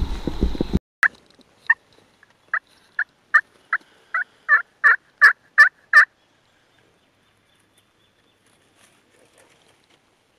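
A series of about a dozen hen-turkey yelps on a diaphragm mouth call, one note after another at roughly two to three a second. They grow louder and a little faster toward the end, then stop about six seconds in. A brief whisper comes before them at the very start.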